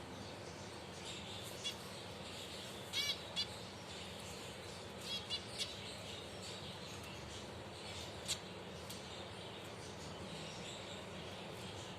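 Finches chirping: scattered short, sharp chirps, some in quick runs of two or three, over a steady background hiss.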